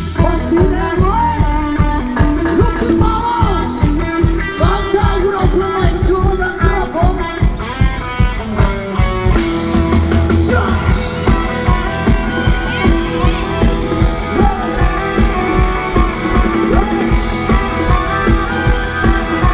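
Thai ramwong dance music from a live band through a large PA system: a steady driving beat under a melody with singing.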